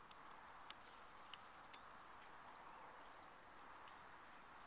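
Florida scrub jay hammering an acorn with its beak against a wooden fence rail: about half a dozen faint, sharp taps at irregular intervals.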